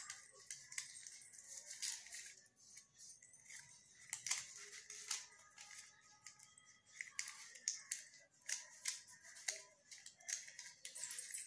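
Paper crinkling and rustling as a square of paper is folded and creased by hand into an origami piece: soft, irregular crackles and clicks.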